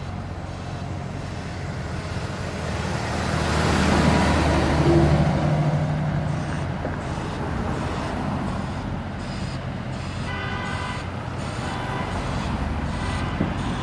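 Container truck passing close by, its engine and tyre noise swelling to a peak about four to five seconds in and then fading into steady road traffic. A short pitched tone sounds about ten seconds in.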